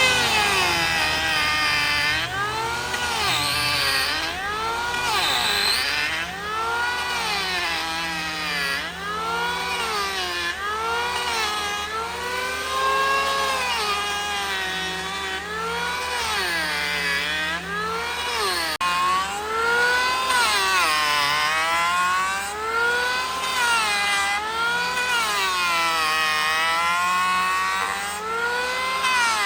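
A power saw's motor running hard through wood, its pitch dipping and rising again every second or two as the cutting load changes.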